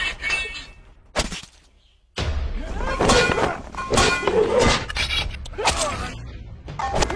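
Blade-fight sound effects: a single hard hit about a second in, then after a short lull a dense run of blade strikes and thuds with shouting.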